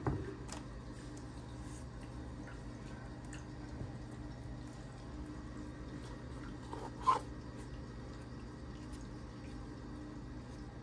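Hands handling the cardboard packaging of a laptop box, over a steady low room hum. There is a knock at the very start as something is set down. About seven seconds in comes a sharp click, as the coiled charging cable is lifted out of its slot in the box's paper tray.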